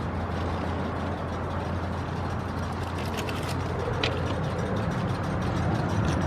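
Railroad cab signal code generators clicking out their pulse code over a steady electrical hum. One sharper click comes about four seconds in.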